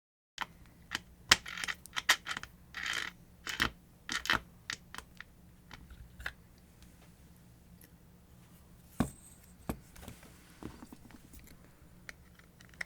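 Metal parts of an angle grinder's gear head being handled and pried apart by hand. A quick run of sharp clicks and short scrapes over the first five seconds or so, then a few scattered clicks.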